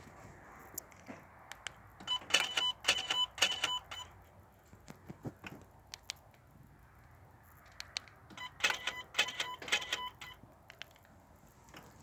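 Electric EGR valve actuator on a Volvo D5 Euro 4 five-cylinder diesel chattering in two buzzing bursts of about two seconds each, with a steady whine under the rapid clicks. It is an abnormal noise that the owner links to loss of power after a few kilometres.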